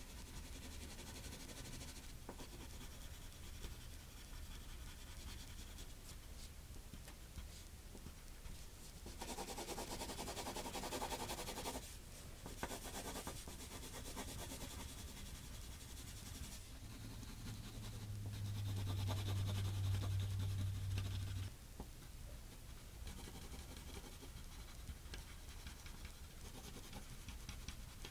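Pencil scratching on paper as a sketch is drawn and shaded, with a louder run of fast strokes about a third of the way in. A low steady hum comes in past the middle for a few seconds and cuts off suddenly.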